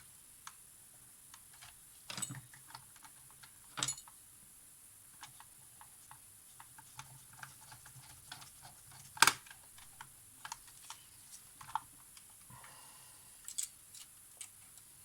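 Irregular light clicks and taps of small tools and camera parts being handled during bench work on a Polaroid instant camera. One sharper click about nine seconds in.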